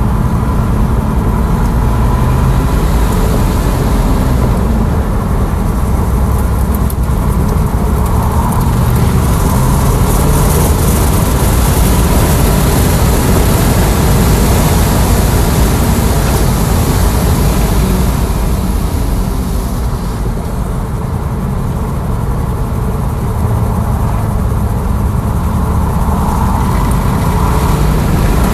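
Tesla Model S Plaid at racing speed, heard from inside the cabin: a loud, steady rumble of tyre, road and wind noise. The hiss grows as the car builds past 100 mph, then eases as it slows, and rises again near the end.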